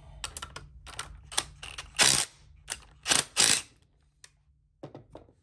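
Irregular metallic clicks and clatter as a cordless driver takes out the bolts of a homemade plugging bracket on a two-stroke engine's side cover, with a few louder short bursts about two and three seconds in.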